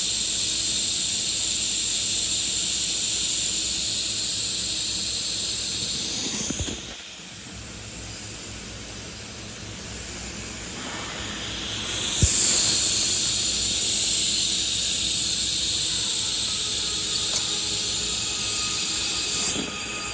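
Welding arc sizzling with a steady high hiss in two runs: it stops about six and a half seconds in, strikes up again with a sharp click about twelve seconds in, and cuts off just before the end.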